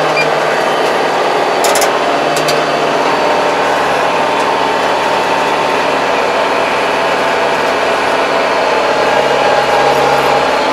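Kubota 75 hp tractor's diesel engine running steadily under load while it pulls a rotary tiller through weedy ground, heard from inside the cab. A couple of short clicks come about two seconds in.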